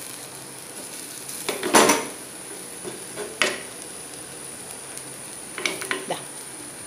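A ladle scraping and knocking against an earthenware cooking pot as a dry coconut stir-fry is stirred. The loudest scrape comes just under two seconds in, another at about three and a half seconds, and a few light knocks near six seconds, over a faint steady sizzle.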